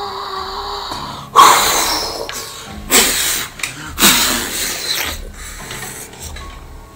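A man's harsh, raspy growling breaths, three loud ones about a second and a half apart, each fading away, after a short held tone at the start.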